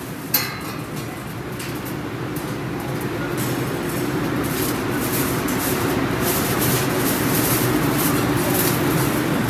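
A steady rumbling noise that slowly grows louder, with a sharp click just after the start.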